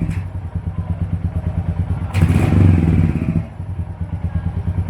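Royal Enfield Hunter 350's single-cylinder engine idling with a deep, even exhaust beat, blipped once about two seconds in for a rise of about a second before settling back.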